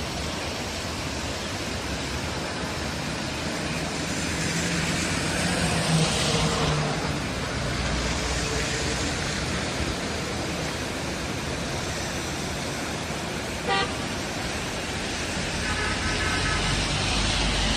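A steady loud rushing noise, with road traffic and short vehicle horn toots: one about fourteen seconds in and a brief pitched horn a couple of seconds later.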